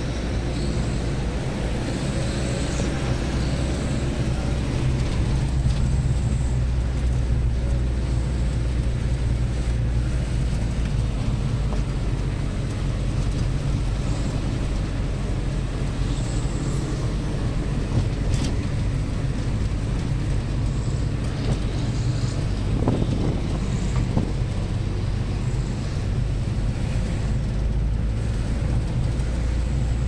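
Steady low rumble of engine and road noise heard from inside a moving car's cabin.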